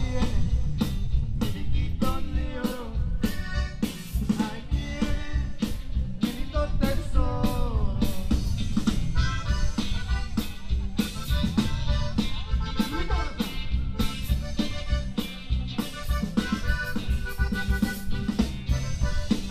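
Live conjunto band playing: accordion, bajo sexto, bass and drum kit, with an even drum beat.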